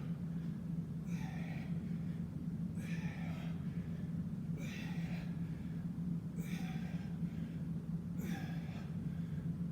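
A man's heavy breathing while doing bodyweight squats: a hard breath out about every two seconds, one per rep, over a steady low hum.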